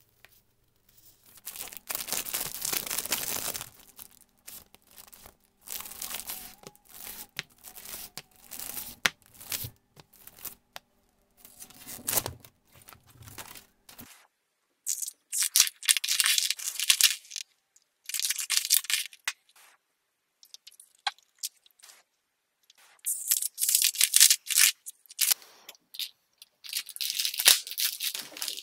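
Clear plastic packaging bags crinkling and tearing in repeated bursts of rustling, each a second or two long. Small clicks and taps from camera accessories being handled fall between the bursts.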